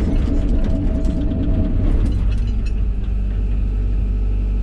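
Hyundai excavator's diesel engine running under load as the machine tracks backwards, with clattering from the tracks. About two seconds in the clatter stops and the engine settles to a steady drone.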